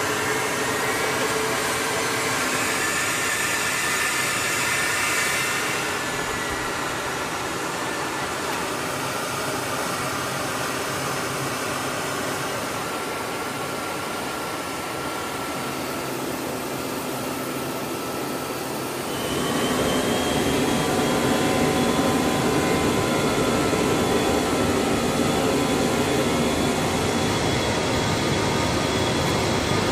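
Jet engines running, heard from inside an aircraft's cockpit as a steady, dense rush. About two-thirds of the way through it becomes louder and fuller, with a thin high whine over it.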